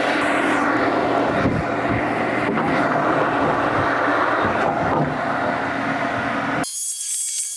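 Sawmill's engine running loud and steady as the mill cuts a log, with a few knocks along the way. Near the end the mill sound cuts off suddenly and gives way to a high hiss.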